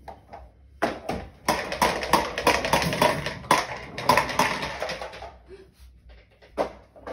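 A loud, rapid rattling clatter: a few single knocks, then many quick knocks in a row for about four seconds, and one more knock near the end. It is made as a sudden-noise test of the puppy's startle reaction.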